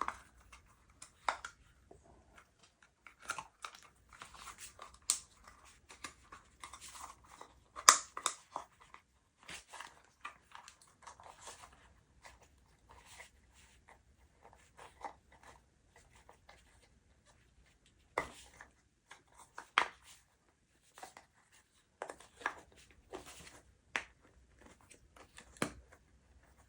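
A rubber RC-car tire being pushed and rotated by hand onto its plastic wheel rim: irregular rubbing and clicking of rubber on plastic, with one louder click about eight seconds in.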